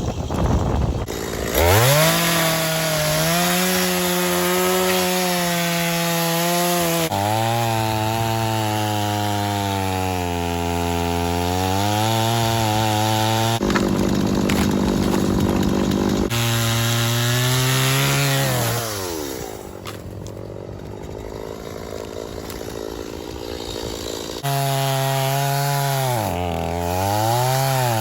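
Gas-powered Stihl chainsaw cutting through a downed tree's wood, the engine's pitch sagging under load and climbing back again and again. It eases off to a quieter, lower note for a few seconds past the middle, then bites in again near the end.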